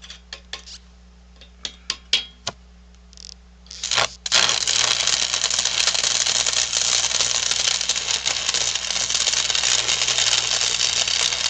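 A few short clicks and taps, then about four seconds in an electric arc welder strikes and runs a steady, loud crackling weld, tacking a steel gusset plate onto the wood splitter frame.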